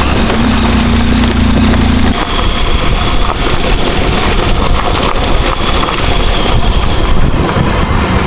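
Dirt bike running while it is ridden off-road. A steady low engine note is plain for about the first two seconds, then gives way to a loud rough noise.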